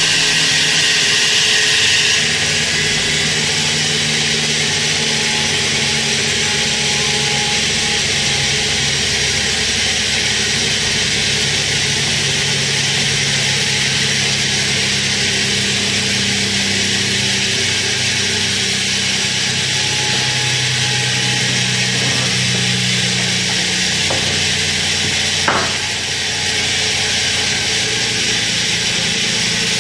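Single-phase induction motor running fast on a three-phase 408 V supply: a steady whirring with a low electrical hum underneath. One sharp click about 25 seconds in.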